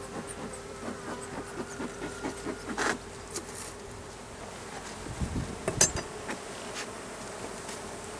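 Honey bees buzzing around an open hive as a steady hum that fades after about three seconds, with a few sharp knocks of hive woodenware being handled, the loudest just before six seconds in.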